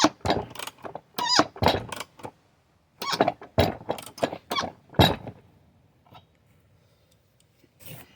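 Metal struck repeatedly, with irregular ringing blows about two to three a second, as the seized hub of a Sears Suburban SS16 garden tractor is hacked at to break it loose. The blows stop about five seconds in, and there is one more near the end.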